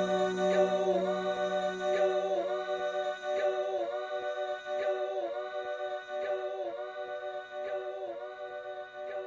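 Wordless a cappella vocal chord held by several voices, with a slight regular wobble in pitch, fading slowly.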